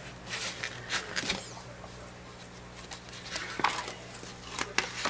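Faint, scattered rustling and light ticks of heavy calendar paper being handled as a page is turned.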